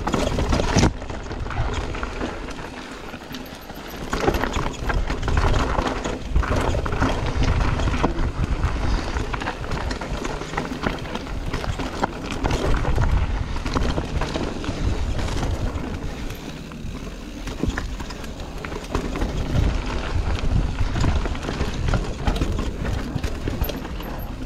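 Mountain bike descending a rough dirt trail at speed: tyres crunching over dirt and rocks, with a constant clatter of small knocks from the bike rattling over the bumps. A low rumble of wind buffets the microphone throughout.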